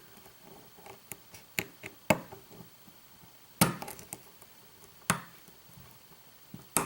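Lock being picked with a hook pick and tension tool: about six sharp metal clicks spaced a second or so apart as the pick works the pins.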